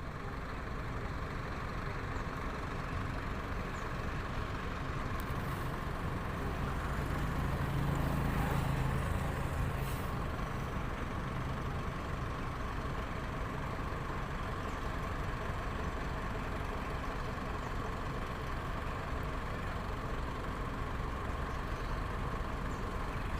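Steady rumble of motor-vehicle engines, swelling with a low hum about eight seconds in, with a brief sharp hiss or click around ten seconds.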